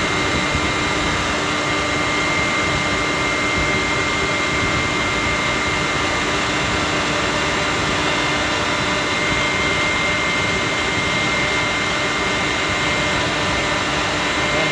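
A running compressor unit making a steady loud drone, with several fixed whining tones over the noise and no change in pitch or level.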